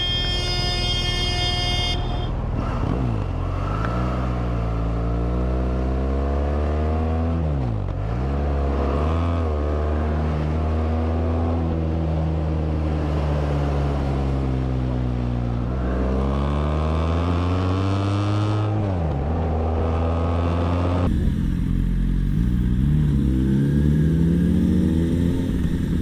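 Motorcycle engine, its pitch climbing and dropping several times as it accelerates and slows, with a vehicle horn sounding for about two seconds at the start. About 21 seconds in, the sound changes to another motorcycle engine with a steady hiss over it.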